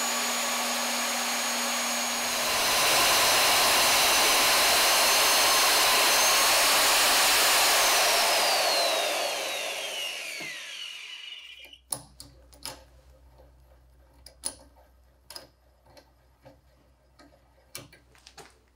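VEVOR magnetic drill's motor running and drilling into a steel plate, louder from about two and a half seconds in, then spinning down with its whine falling away around eight to eleven seconds in. After that, a low hum and scattered light clicks of hand tools on metal.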